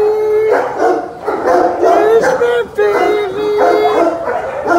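Dogs in shelter kennels whining and howling in long, wavering cries that overlap one another, with short breaks between them.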